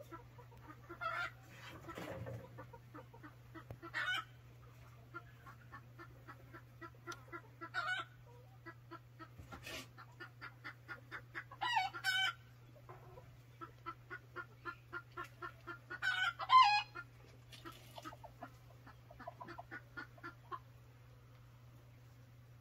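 Chickens clucking in a steady run of short clucks, broken several times by louder squawking calls, the loudest about two-thirds of the way through. A steady low hum runs underneath.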